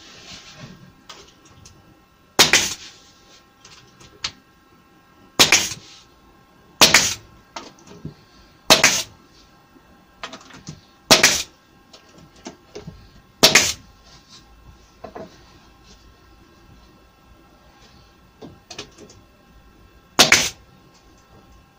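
Pneumatic narrow crown stapler driving 20 mm staples through an MDF backboard into the shelf carcass: seven sharp shots a few seconds apart, with lighter knocks from handling the tool and board between them.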